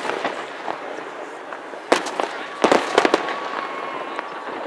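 Aerial fireworks shells bursting: a sharp bang about two seconds in, then a quick cluster of four or five bangs around the three-second mark.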